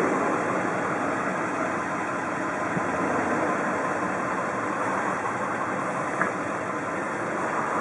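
Chevrolet Silverado pickup's engine idling steadily, heard from inside the cab.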